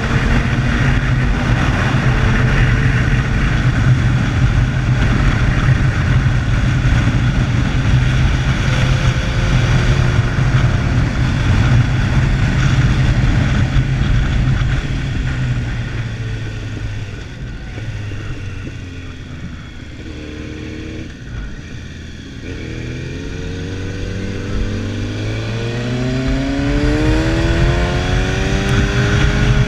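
Motorcycle engine running at steady road speed under heavy wind noise on a bike-mounted camera. About halfway through the throttle eases and it quietens as the bike slows, then the engine pitch climbs steadily as it accelerates again near the end.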